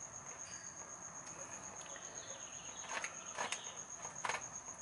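A few sharp metallic clicks, about three, three and a half and four seconds in, as the removed differential drain plug and socket are handled over the drain pan. A steady, evenly pulsing high-pitched tone runs behind them.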